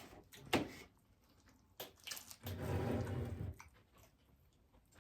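Close-up eating sounds: a few wet mouth clicks and smacks, then about a second of muffled chewing in the middle.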